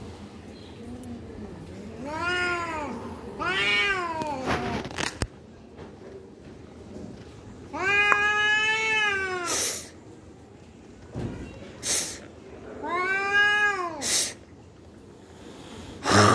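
Two cats in a standoff caterwauling: four long, wavering yowls, each rising then falling in pitch, the longest almost two seconds, with short sharp bursts of noise between them.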